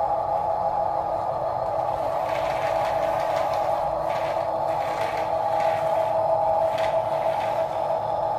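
Small electric motors and plastic gearboxes of toy RC construction machines whining steadily, with a few faint scrapes and clatters of material being moved.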